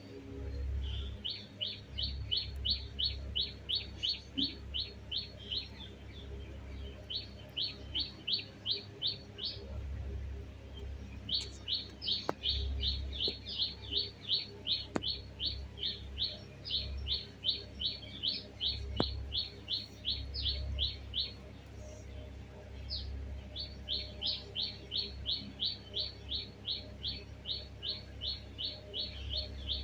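Pet parrot chirping in long runs of short, quick, evenly spaced high chirps, about three a second, breaking off briefly three times.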